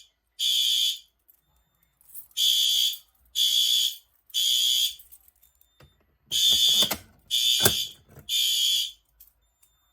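System Sensor fire alarm horn strobes sounding in the temporal-three evacuation pattern: three short, high-pitched horn blasts about a second apart, then a pause, then three more. A sharp knock is heard during the second group.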